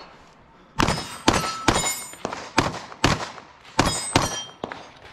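A rapid string of about eight pistol shots fired at steel targets, starting just under a second in. Several shots are followed by the ringing clang of a steel plate being hit.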